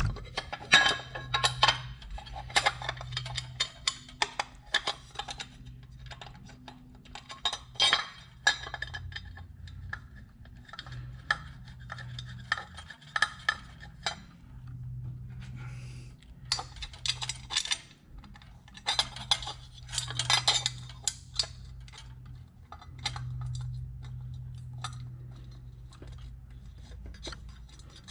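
Hand tools and metal engine parts clinking and tapping irregularly during engine assembly, over a steady low hum.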